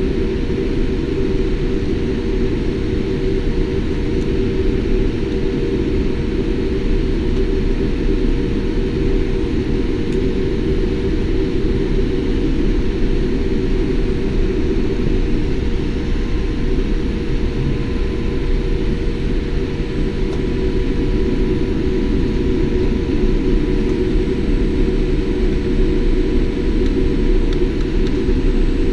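Steady cabin rumble inside a Boeing 787 taxiing after landing: the engines at taxi power and the cabin air system give a deep, even noise. A faint thin whine joins about halfway through.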